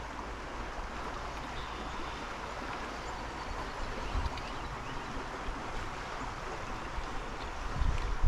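Creek water running steadily, an even rushing hiss, with a couple of brief low thumps about halfway through and near the end.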